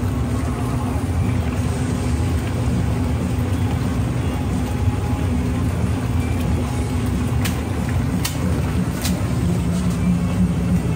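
Steady low rumble of a ramen kitchen's gas burners and range-hood extractor running under the steaming noodle boiler. Three sharp clicks come about a second apart roughly two-thirds of the way through.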